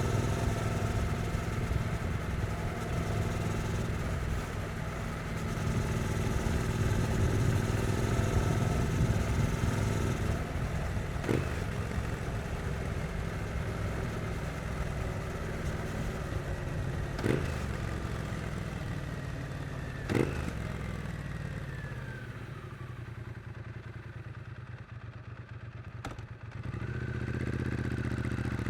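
Triumph Street Twin's 900 cc parallel-twin engine running under way, pulling steadily for about the first ten seconds, then easing off and winding down to a quieter, near-idle note before picking up again near the end. A few short sharp knocks are heard along the way.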